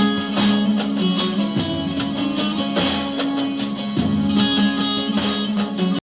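Instrumental break of a Turkish song: plucked strings over a sustained low note, with a moment of dead silence near the end.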